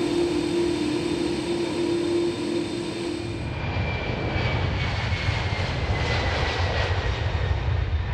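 Airbus Beluga ST's GE CF6 turbofans: a steady jet whine close by as it taxis, then, from about three seconds in, the deep rumble of the takeoff roll, with a faint whine slowly falling in pitch.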